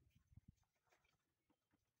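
Near silence, with a few faint scrapes and taps of a mason's steel trowel working cement mortar on concrete blocks.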